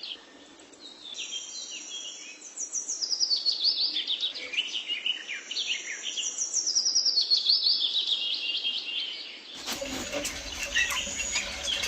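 Birds chirping in rapid runs of short, high, falling notes. About ten seconds in, the sound changes to a noisier recording with clicks under the birdsong.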